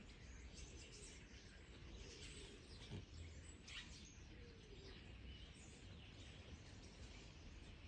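Near silence: room tone with faint bird chirps in the background and a faint tap about three seconds in.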